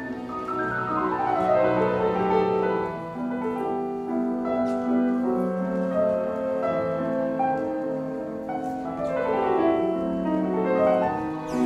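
Romantic classical piano music, with fast runs of notes sweeping downward twice.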